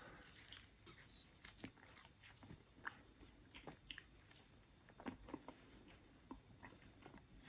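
Faint chewing: a person eating a mouthful of chicken curry, with scattered soft mouth clicks and small cutlery or dish ticks.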